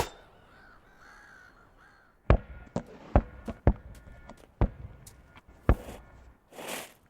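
A ball bouncing hard on a court, about eight irregular sharp thuds with a deep low end over three seconds, with squeaky tones between them like basketball sneakers on hardwood. Near the end comes a short hiss.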